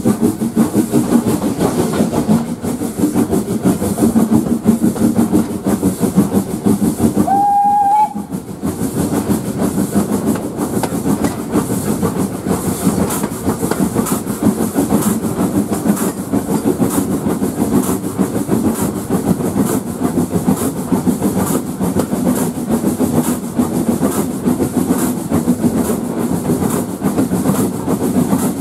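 Steam locomotive hauling the train at speed, heard from a carriage window just behind it: steady running noise of exhaust and wheels on the rails, with a brief, slightly rising whistle about eight seconds in.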